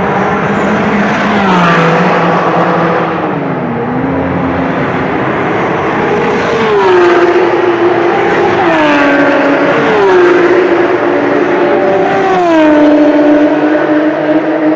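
Sports and racing cars on a circuit passing one after another at speed, loud and continuous, with several engine notes each dropping in pitch as the car goes by.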